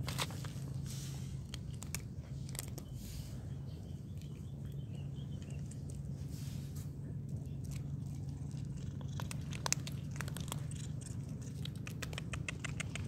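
Cats crunching dry kibble: scattered sharp crunches and clicks that come thickest in the last few seconds, over a steady low hum.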